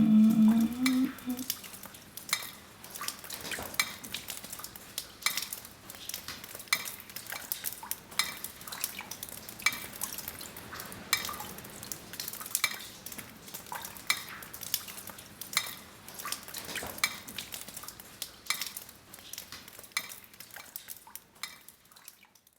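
A voice holds a note that rises slightly and ends a second or so in. Then small hard objects click and clink irregularly, a few times a second, with some faint ringing, fading out near the end.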